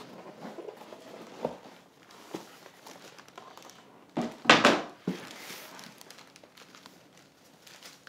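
Rigid cardboard gift box handled and opened, with tissue paper crinkling and rustling; small taps and rustles, with one louder rustle about halfway through.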